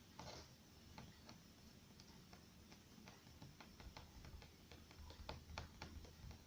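Near silence with faint, irregular light clicks and taps, the small sounds of hands and tools working polymer clay at a table.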